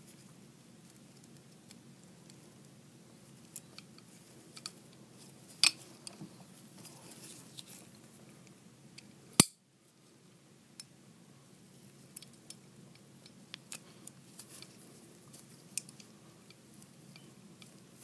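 Small metal clicks and taps of an Allen key working on the 1911's magazine catch, pistol parts being handled between turns, scattered and uneven. Louder clicks come about five and a half seconds in and, loudest of all, about halfway.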